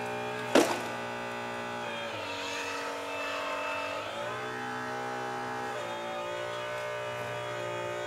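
Hydraulic pump drive of a radio-controlled Liebherr 944 model excavator whining, its pitch sliding up and down to new steady levels several times as the boom and bucket are worked. A single sharp knock comes about half a second in.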